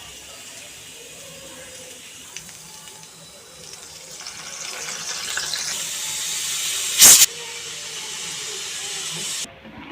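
Hot oil sizzling and hissing as food fries. The hiss swells from about four seconds in, has a sharp loud crackle about seven seconds in, and drops away suddenly near the end.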